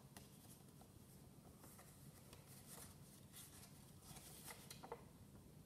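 Near silence: room tone with a faint low hum and a few soft scattered rustles and clicks.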